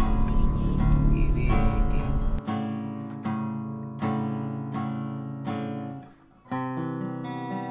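Background music: an acoustic guitar strumming chords, about one strum every three-quarters of a second, each chord ringing out. A low rumble sits under it for the first couple of seconds.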